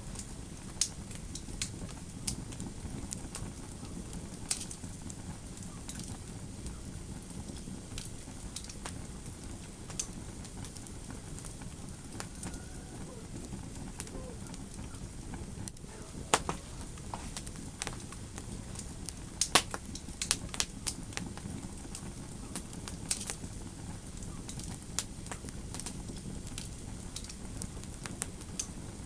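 Fire crackling in a fireplace: a steady low rumble of flames under irregular sharp pops and snaps, with a cluster of louder pops about two-thirds of the way through.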